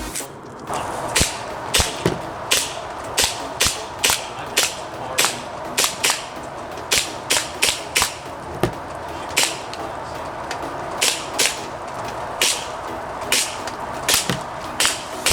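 Airsoft gun firing a long string of single shots, about one or two a second, each a sharp crack.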